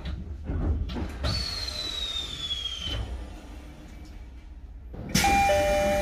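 Electric train car with a low rumble and a falling whine. About five seconds in, the sliding doors open with a sudden hiss of air, and a two-tone door chime starts, a high note then a low note repeating about once a second, in the style of the JR East E531 series 3000 chime.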